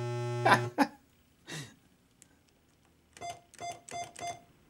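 Coin-operated video poker machine's electronic sound effects during play: a buzzing tone about a second long ending in quick falling chirps, another short chirp, then four quick beeps near the end.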